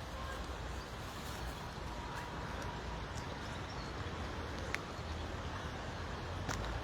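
Steady outdoor background noise with a low rumble underneath, broken by two sharp clicks about two seconds apart near the end.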